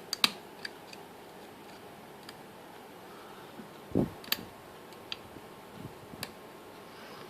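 Scattered small metallic clicks of a lock pick working the pins and warding inside an Abus XP10 lock cylinder held under tension, with a soft low bump about four seconds in.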